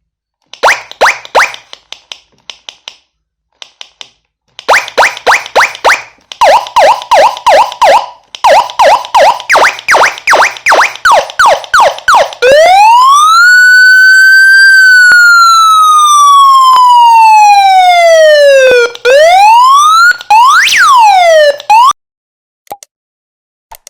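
Arduino-built electronic police siren stepping through its tones: first a rapid chirping pattern of short falling notes that changes character partway through, then one long wail that rises and slowly falls, then faster up-and-down yelps, cutting off about two seconds before the end.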